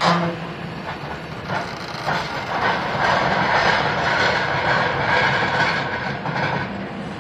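Excavator's hydraulic demolition crusher biting through reinforced concrete: a sharp crack right at the start, then dense crunching and crackling of breaking concrete, loudest in the middle, over the machine's steady hum.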